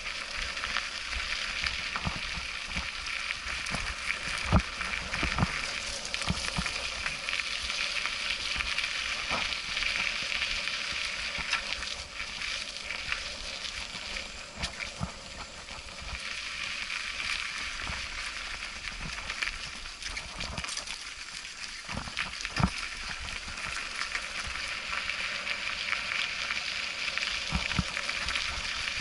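Mountain bike rolling along a leaf-strewn dirt trail: a steady crunching hiss of knobby tyres over dry leaves and soil, with rattles and knocks as the bike hits bumps. The sharpest knocks come about four seconds in and again at about twenty-two seconds.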